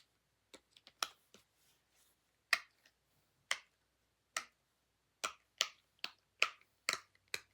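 Blue silicone pop-it fidget toy having its bubbles pressed through one by one: about ten sharp pops, spaced out at first and coming quicker in the second half.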